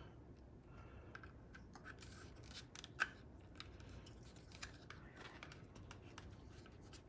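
Faint handling sounds of fitting a wire onto a steering wheel: light rustling with scattered small plastic clicks, a sharper click about three seconds in.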